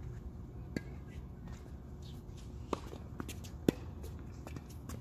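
Tennis rally on a hard court: a few sharp pops of the ball being struck by racquets and bouncing. The loudest comes about three and a half seconds in, the near player's forehand. Under it runs a steady low background rumble.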